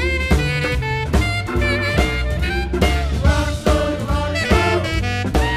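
Swing music with horns and a steady beat.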